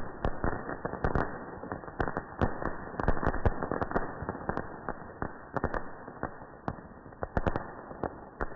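Tiger Pots ground fountain firework burning, a steady hiss of spraying sparks with dense crackling and sharp pops from its bursting stars, thinning out and getting quieter toward the end.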